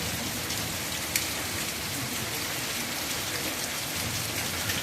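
Steady heavy rain mixed with pea-size hail coming down, with a few sharp clicks of hailstones striking, the clearest about a second in.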